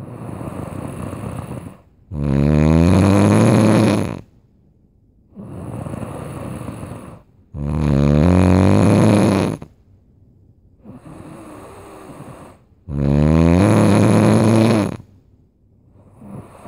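A sleeper snoring loudly and rhythmically: three long, loud snores of about two seconds each, some five and a half seconds apart, with quieter, breathier snores between them.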